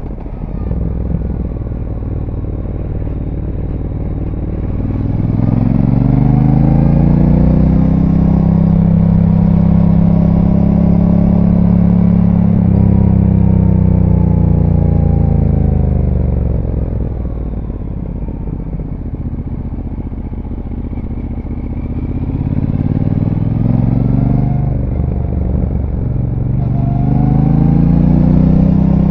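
Brixton Cromwell 1200's parallel-twin engine through its stock exhaust, heard from on board while riding: the revs climb about four seconds in, hold high, then fall away as the throttle rolls off. Near the end it pulls up again, with a short dip about three-quarters through, like a gear change.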